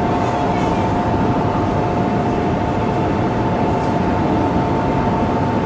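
Coupled Shinkansen train, an E3-series Tsubasa leading an E2-series Yamabiko, running past at platform speed: a steady rumble with a constant two-note hum over it.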